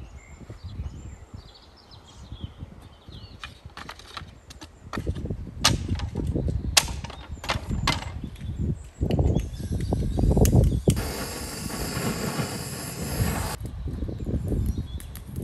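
Wooden sticks clattering into a dirt pit, several sharp knocks, then a handheld gas blowtorch hissing steadily for about two and a half seconds as it lights the kindling. Faint bird chirps early on, and a gusty low rumble underneath.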